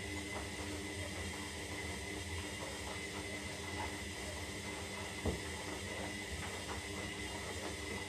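Zanussi Lindo 300 washing machine with water flowing through it: a steady hiss over a low electric hum, with a single knock about five seconds in.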